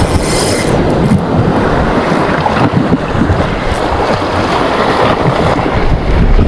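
Wind buffeting the microphone over the steady wash of waves, a loud, unbroken rumbling noise.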